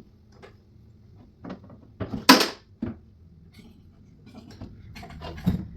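Knocks and clicks of flat-pack cabinet parts and hinge hardware being handled, with a louder clatter about two seconds in and a run of small clicks near the end.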